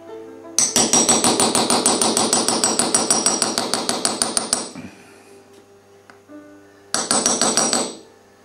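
Small hammer tapping a chasing punch against a copper relief sheet: a rapid, even run of bright metallic taps for about four seconds, a pause, then a second, shorter run of about a second.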